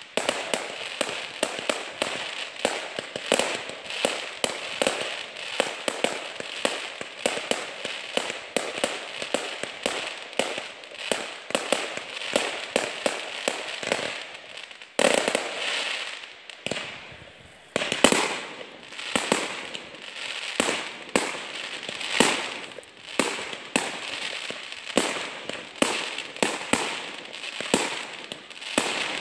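Fireworks crackling: a dense run of sharp pops and bangs, several a second, with a brief lull about seventeen seconds in that ends in the loudest crack.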